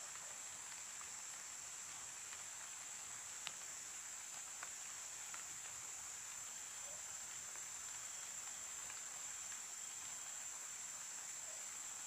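Steady high-pitched drone of insects, unchanging throughout, with a few faint clicks and one sharper click about three and a half seconds in.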